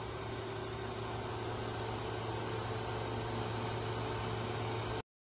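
Ribon RUR 1000 hydraulic cylindrical grinder running idle, a steady electric machine hum. It cuts off abruptly near the end.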